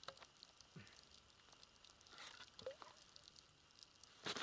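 Near silence with a few faint scattered clicks, then a sudden loud rush of noise right at the very end.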